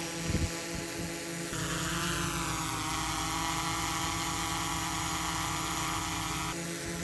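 Small DJI drone's 4-inch propellers in flight, a steady whine made of several stacked tones. The tone changes abruptly about a second and a half in and again near the end, as the sound switches between stock DJI propellers and Master Airscrew propellers.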